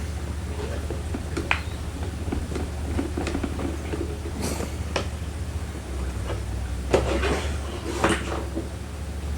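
Car door latch parts being worked by hand: scattered clicks, taps and rattles of metal and plastic, with a few sharper knocks, over a steady low hum.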